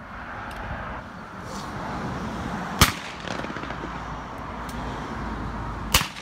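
Two shotgun shots at clay targets on a trap range, about three seconds apart, each a sharp crack with a short echo.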